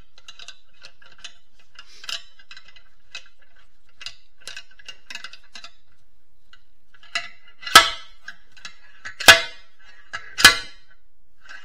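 Slide hammer being worked on a bolt welded to a stuck part in a manual transmission case: light metal clinks as it is set, then three sharp, ringing metal-on-metal impacts, evenly spaced about a second and a half apart, in the second half, as the weight is driven against its stop to pull the part out.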